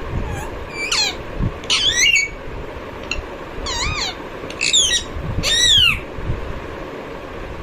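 Green ringneck parrot (rose-ringed parakeet) calling: a run of short squawking calls that rise and fall in pitch, several in the first six seconds, then it goes quiet.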